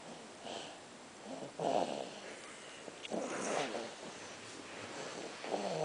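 Snoring: four separate snoring breaths, one every one to one and a half seconds.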